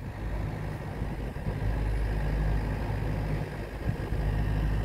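Motor vehicle engine idling, a steady low hum.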